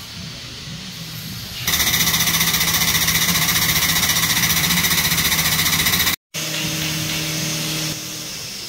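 Hydraulic guided-bend tester running under power to bend a stainless steel pipe weld test coupon. A loud, steady buzzing hiss with a fast flutter starts about two seconds in. After a brief dropout it carries on more quietly with a low hum until near the end.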